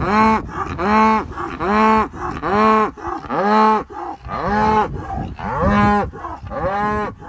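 Cattle mooing in a rapid, even series: about eight moos, roughly one a second, each rising and then falling in pitch.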